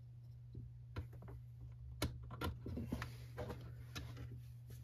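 Light, scattered clicks and taps of hands working small plastic parts and fuel lines at a leaf blower's carburetor.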